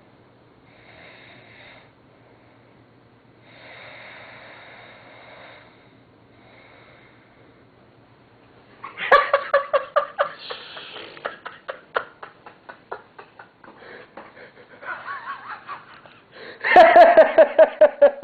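A sleeping man's soft snoring breaths, then from about nine seconds in, bursts of stifled giggling laughter that come in rapid pulses and are loudest near the end.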